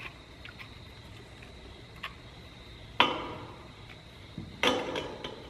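Handling knocks as a small stainless sheet-metal piece is fitted by hand against turbo tubing: a faint click about two seconds in, a sharp knock with a short ring about three seconds in, and a rattle of knocks near the end.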